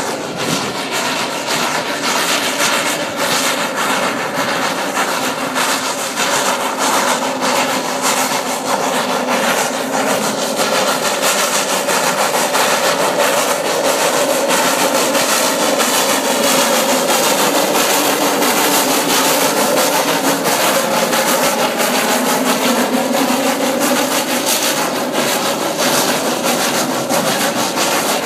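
Snowdon Mountain Railway rack train passing at close range: a continuous grinding, rasping rub from the cog running on the rack, with slowly wavering tones underneath.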